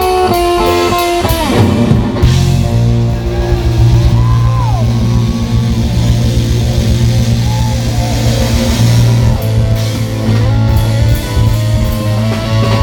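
Live blues band playing an instrumental passage: electric guitar lead over drums, cymbals and bass. A quick run of guitar notes gives way about two seconds in to a heavier full-band section with a held low bass note and bent guitar notes.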